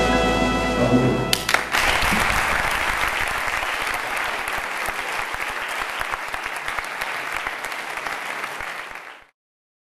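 Brass music ends on a held chord about a second in, then an audience applauds, the clapping slowly fading and stopping shortly before the end.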